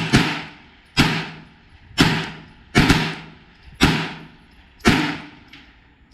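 A steady string of 9mm Glock pistol shots, about one a second, each loud crack followed by a short echoing tail, with a fainter report near the end.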